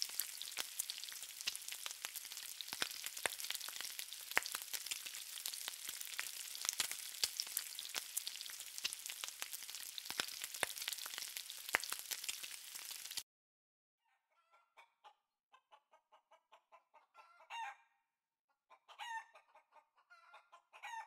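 Lamb chops sizzling on a hot cast-iron sizzler platter, a dense crackle with frequent sharp pops. It cuts off abruptly about two-thirds of the way through. Then comes a quieter run of short animal calls and a few longer rising calls.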